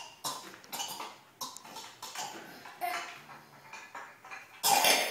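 A person coughing repeatedly: a string of short coughs about every half second, with a louder fit of coughing near the end.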